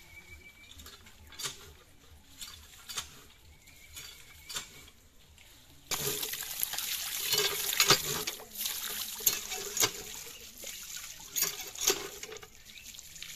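Water from a hand pump gushing and splashing over fish pieces in a plastic basket; it starts suddenly about six seconds in and drops away shortly before the end. Before it, only faint scattered clicks and knocks.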